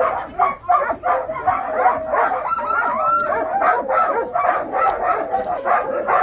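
A team of sled dogs barking and yelping, many at once in a continuous din, while being harnessed for a run. A longer wavering cry rises above the rest about halfway through.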